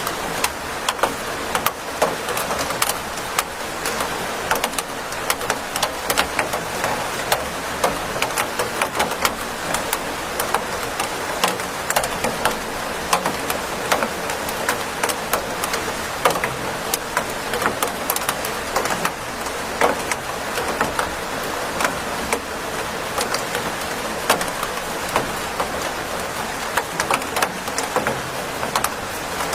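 Steady rain with a constant hiss and many close, sharp drip and drop impacts scattered throughout.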